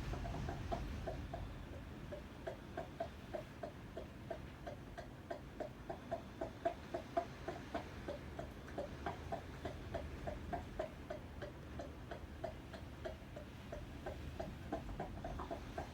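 Air conditioner giving off a steady, clock-like ticking, about three ticks a second, over a low rumble: the odd noise it makes in typhoon wind.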